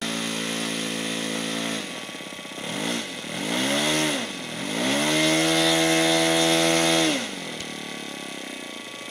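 Small internal-combustion engine of an RC model airplane running and being throttled: steady for a couple of seconds, pitch dipping and rising twice, held at high revs for about two seconds, then throttled back to a quieter idle near the end.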